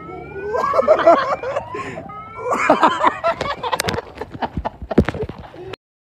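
People laughing loudly, then a burst of sharp knocks and rustling as the phone is jolted about, cutting off abruptly near the end.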